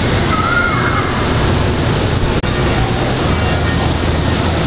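G scale model freight train running on the layout: a steady rumble of the wheels on the track, with a low hum.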